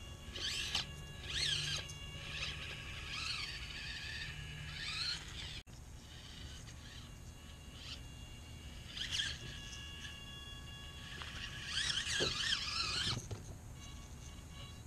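Songbirds chirping in several spells of quick rising and falling notes. Under them runs the faint steady whine of a micro 1/24-scale RC crawler's electric motor.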